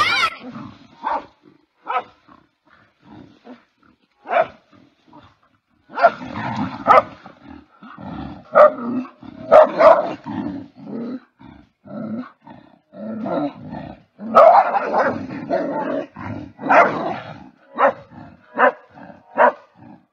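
Two dogs fighting: growling in irregular bursts, broken by short sharp barks and yelps, with the fiercest flurries in the middle and again in the second half.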